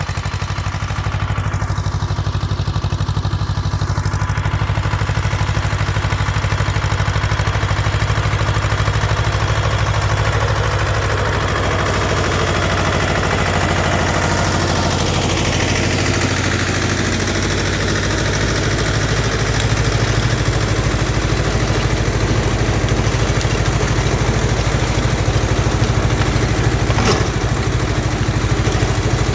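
T-25 tractor's two-cylinder air-cooled diesel running steadily under load while it drives a rotary tiller through the soil.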